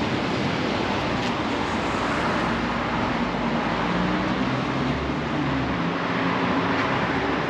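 Steady street traffic noise from cars on a city road. A low engine hum stands out from about three seconds in.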